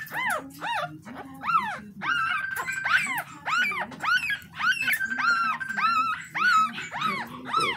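Toy Schnoodle puppy crying in a continuous run of high squeals that rise and fall in pitch, about two a second, as its tail is tied off with a tight elastic band for docking.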